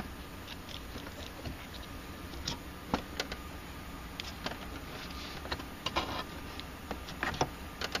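Scattered small clicks, taps and scrapes of hands working the shifter's parts and rubber boot loose in the car's console opening, over a low steady hum.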